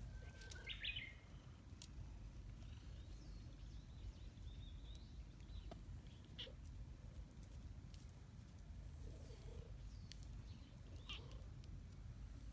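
Quiet outdoor background with a steady low rumble and a few brief, high chirps, the loudest just under a second in.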